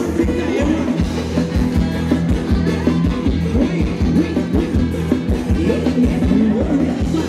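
Live Thai ramwong band music: a singer over a drum kit keeping a steady dance beat.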